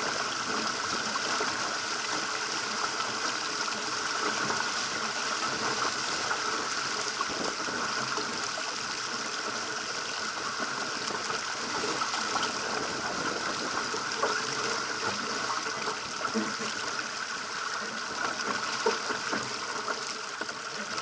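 Steady rush and hiss of water along the hull of a Pacer sailing dinghy driving through choppy water, with spray coming off the bow.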